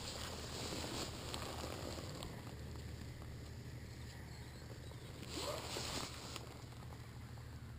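Warm Honda NX650 Dominator's air-cooled single-cylinder engine idling steadily through its original exhaust. About five and a half seconds in there is a brief louder rustle with a short rising squeak.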